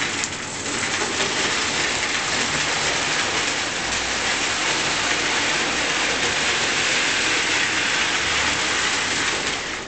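Pre-war American Flyer O gauge electric train running forward around three-rail track: a steady rushing whir of its motor and metal wheels on the rails, a little louder after about a second.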